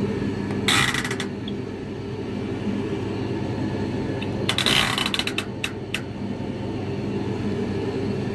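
Hotpoint TL52 running with a steady mechanical hum, broken twice, about a second in and again around five seconds, by short bursts of harsh rattling noise; this is the noise fault the owner wants to fix.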